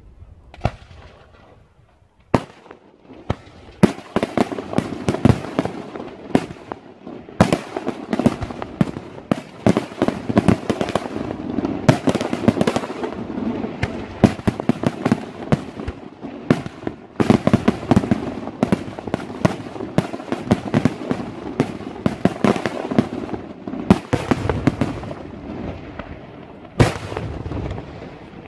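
Daytime fireworks display: aerial shells bursting in a rapid, nearly unbroken string of bangs. It starts with a single bang about two seconds in, builds into a dense run of reports, and eases off near the end.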